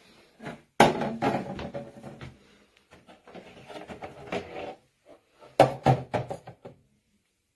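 Knocks and rattling clatter of plastic organizer bins being handled and slid, with two sharp knocks, one about a second in and one just past the middle, each followed by a burst of rattling.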